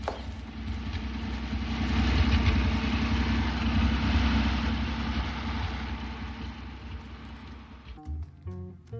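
Military truck engines running, growing louder about two seconds in and then fading, cut off abruptly near the end by music with plucked notes.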